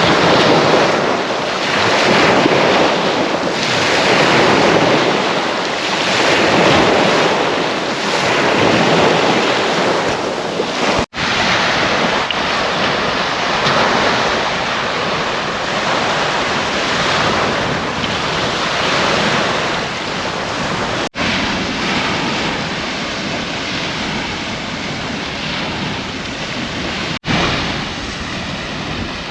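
Waves washing onto the beach, with wind on the microphone, swelling and easing every couple of seconds. The sound drops out for an instant three times.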